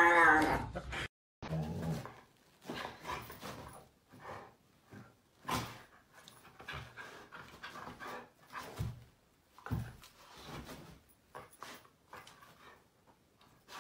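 A husky panting and huffing in short breathy puffs with soft low grunts, excited in a play bow. It is preceded in the first second by a loud wavering cry that cuts off abruptly.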